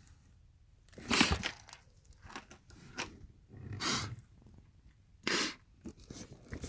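Plastic DVD cases being handled and shuffled while searching through a stack: a few short crunching clatters about one, four and five seconds in, with fainter handling noise between.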